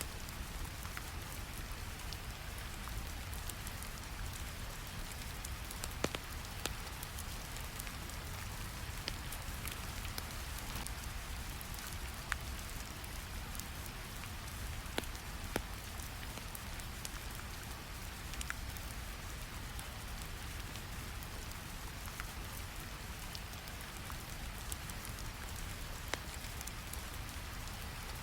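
Steady rain falling, layered over a low, even brown-noise rumble, with scattered small clicks and pops dotted through it.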